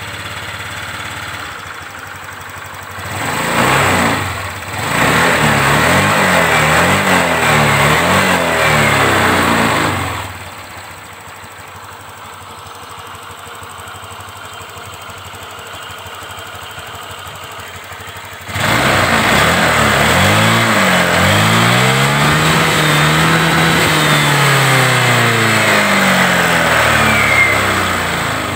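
Honda Vario 125 scooter's liquid-cooled single-cylinder engine idling and being revved by hand on the throttle: a short rev about three seconds in, a longer rev, a stretch of idle, then a long rev that rises and falls near the end. It runs normally after the cam chain tensioner lifter work, without the rough ticking at idle and on throttle release.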